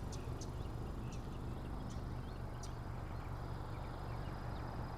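Steady low outdoor rumble with a few short, faint bird chirps scattered through it.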